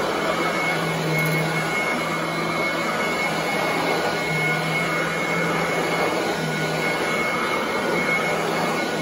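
Royal commercial upright vacuum cleaner running steadily as it is pushed over carpet, a constant rushing noise with a steady high whine and a low hum that swells and fades in spells.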